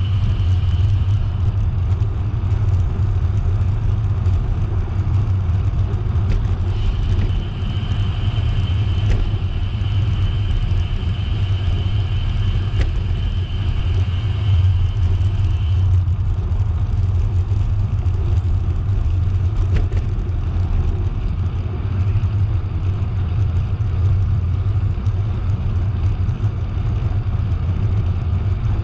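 Steady low rumble of a moving bicycle ride: wind buffeting the microphone and tyres on the path. A thin, high whine comes in briefly at the start and again for about nine seconds in the middle.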